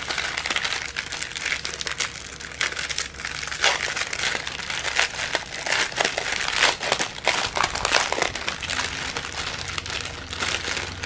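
Clear plastic packaging bags crinkling and crackling as they are handled and opened, without pause.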